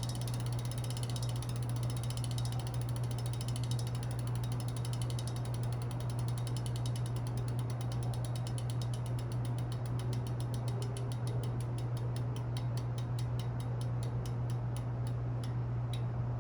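Rear freehub of a Roval Rapide CLX40 wheel ticking as the wheel coasts on a bike stand. The clicking starts as a fast buzz and slows into separate ticks until it stops just before the end: the wheel is spinning down. A steady low hum runs underneath.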